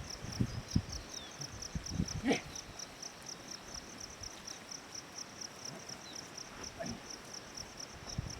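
Insects chirping in a steady, high-pitched pulse, about four pulses a second. A few soft knocks come through, the loudest a little after two seconds in.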